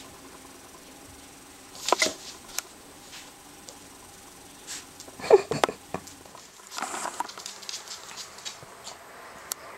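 Rough collie puppy's paws pattering and scuffling on a wooden floor and rug, with a few louder knocks about 2 seconds in and around the middle.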